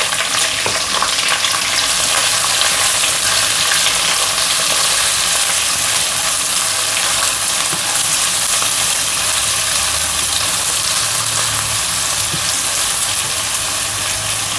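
Chopped onion, green chillies and curry leaves sizzling steadily in hot oil with mustard seeds and garlic as the tempering is sautéed, with scattered small crackles and a spatula stirring in the pan.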